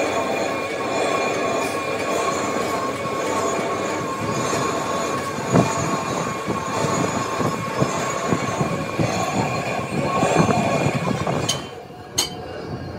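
Steady machinery noise: a constant high whine over irregular clattering rumble. It drops off sharply near the end, with a couple of sharp clicks.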